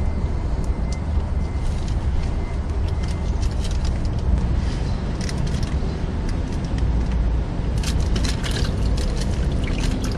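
A steady low rumble, with a cluster of light clicks and taps about eight seconds in as a tool works on the transmission drain plug of a Subaru WRX STI being opened to drain the gear oil.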